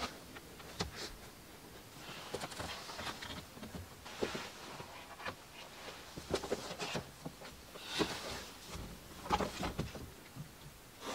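Padded, insulated window-cover panels being handled and pressed into van window frames: scattered soft rustles, scrapes and light taps.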